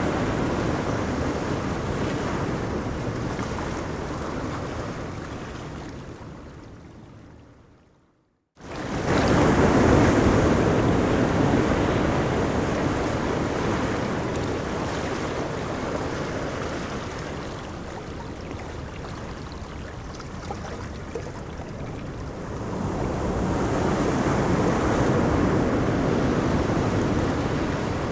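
Ocean waves breaking and washing up on a beach, a steady surf noise that swells and ebbs. About eight seconds in it fades briefly to silence and then cuts back in suddenly at full strength, like an edit splice.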